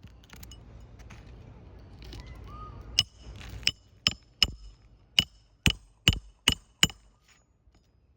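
Hammer striking a roofing nail on a shingle roof: a quick run of about nine sharp, ringing blows, starting about three seconds in, roughly two a second.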